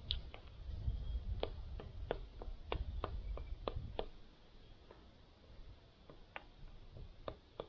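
A spoon clinking and scraping against the inside of a Toaks titanium mug while stirring a rehydrating freeze-dried meal, in irregular sharp ticks that thin out after about four seconds. A low rumble runs under the first half.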